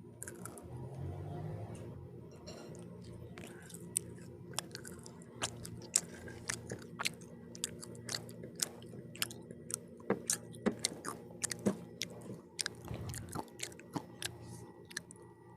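Close-up chewing of pizza, with many sharp wet mouth clicks, a few a second, coming thick from about four seconds in.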